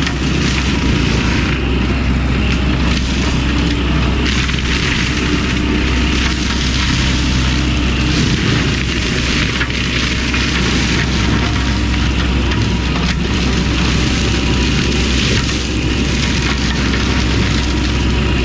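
Fecon Bullhog forestry mulching head on a Cat 308 excavator running steadily, its carbide teeth grinding brush and wood over the excavator's engine hum.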